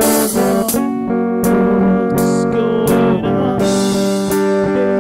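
Live band playing a song: electric guitar, bass guitar and keytar chords over drums, with cymbal hits coming regularly, a little under one a second.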